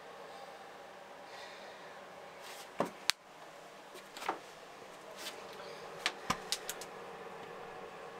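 A few sharp clicks and knocks of wooden boat floor hatches and panels being handled, two close together about three seconds in and a quick run of four between six and seven seconds, over a steady faint hum.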